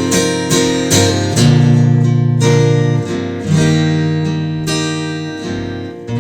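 Acoustic guitar strummed, with a few quick strokes at first, then full chords struck about once a second and left to ring.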